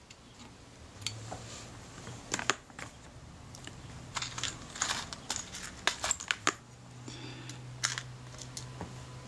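Scattered light clicks and taps of steel tweezers and small metal camera parts: a Kodak Retina IIa's winding mechanism being fitted, and parts picked from a plastic parts dish. They come in clusters about two seconds in, from about four to six and a half seconds, and near eight seconds, over a faint low hum.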